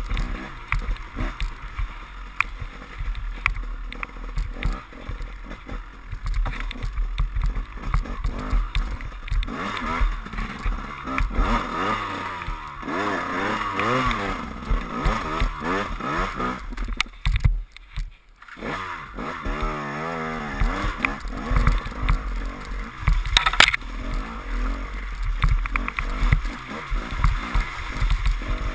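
KTM enduro motorcycle engine being ridden hard, its pitch rising and falling with the throttle as the bike works through mud and rough ground, with a rough low rumble underneath. The sound drops out almost completely for about a second around eighteen seconds in, and a sharp knock comes a few seconds later.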